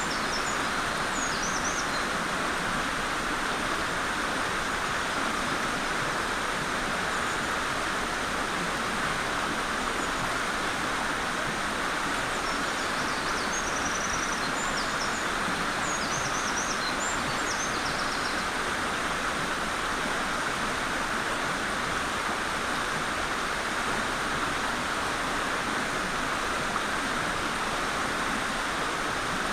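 Mountain stream rushing steadily. A Eurasian wren sings faintly over it, a fast high trilling song at the start and again about halfway through.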